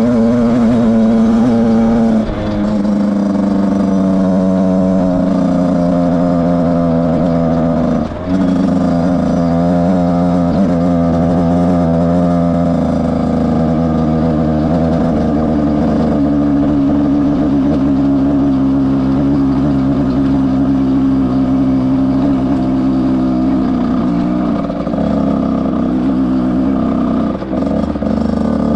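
Beta RR 50cc two-stroke enduro motorcycle engine running under throttle as it is ridden up a dirt track, its note shifting in pitch. Short dips in level come about two and eight seconds in and twice near the end.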